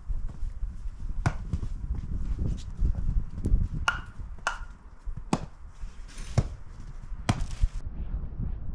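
Split firewood logs knocking against each other and the wooden table as they are stacked, a sharp knock about once a second.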